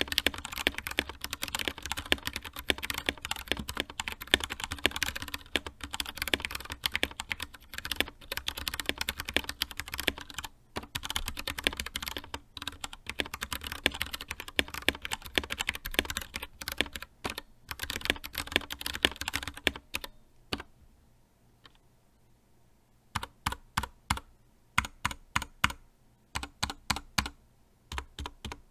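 Anne Pro 2 60% mechanical keyboard with Gateron Brown tactile switches being typed on fast and steadily, a dense stream of key clicks. About two-thirds of the way through the typing stops for a few seconds, then resumes as slower, scattered bursts of keystrokes.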